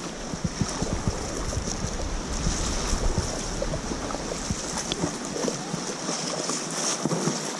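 Kayak paddle strokes splashing and water lapping against the hull as the kayak moves along, with wind rumbling on the microphone.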